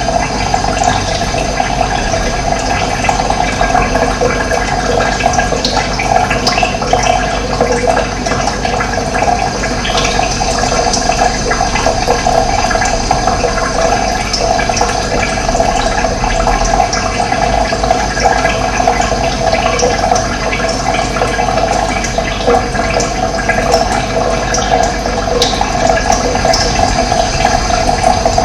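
Running water flowing steadily, a dense, even rush with no pauses.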